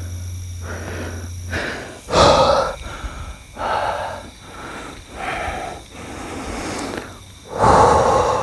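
A man's heavy, ragged breathing: loud gasps and hard exhalations every second or so, the strongest about two seconds in and near the end. A low hum stops about one and a half seconds in.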